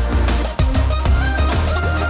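Background music with a deep, sustained bass line, a melody of held notes and a steady drum beat.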